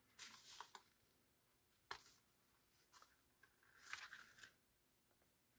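Near silence, with faint rustles of paper card stock being handled and pressed together near the start and again about four seconds in, and a single soft tap about two seconds in.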